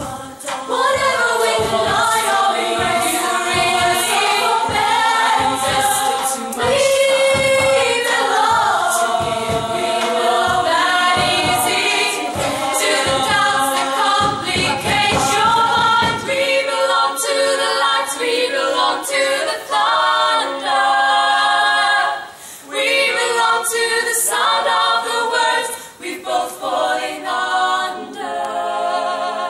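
A group of young women singing together in chorus, with a bass drum keeping a steady beat under the voices for the first half; after about sixteen seconds the drum stops and the voices carry on alone.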